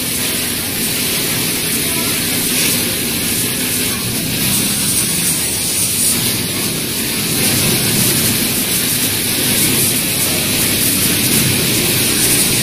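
Automatic pattern sewing machine running at speed: a steady, rapid stitching rattle under a constant loud hiss.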